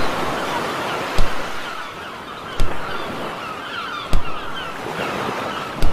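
Ocean surf washing steadily on a beach, with a short thump about every second and a half as a beach ball is batted back and forth.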